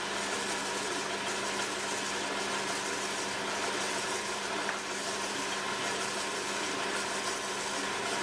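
Potter's wheel motor running at a steady speed, a constant hum.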